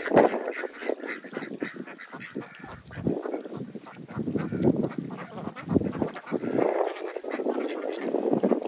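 A flock of domestic waterfowl calling, many overlapping quacks and honks.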